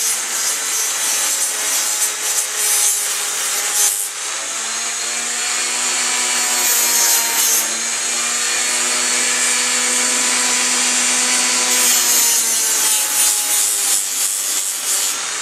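Old gasket goo being scraped and rubbed off the aluminium intake-port mating surface of a 1987 Suzuki GS450 cylinder head: a continuous gritty rubbing with a steady hum beneath it.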